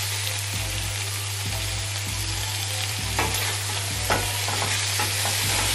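Chicken pieces sizzling in oil in a stainless steel pot. From about three seconds in, a spoon stirs them, scraping and clicking against the pot.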